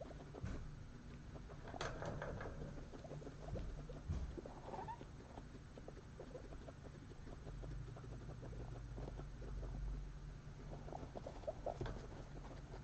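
Guinea pigs eating: rapid, irregular crunching and ticking as they chew a dry pellet-and-vegetable mix and hay, with rustling of hay and paper bedding. A flurry of rustles comes near the end as one shuffles about.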